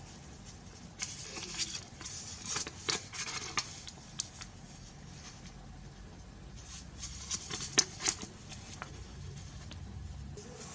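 Handling of a phone's box and packaging: rustling, scraping and light clicks and taps in two clusters, about a second in and again around seven seconds in.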